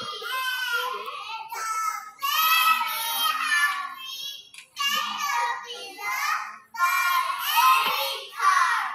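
A group of young children chanting and singing a choral piece in unison, in several phrases with short breaks between them.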